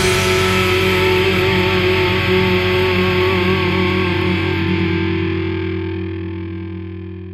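Final chord of a rock song: a distorted electric guitar chord held and left ringing over a low sustained note, slowly fading out after the drums stop.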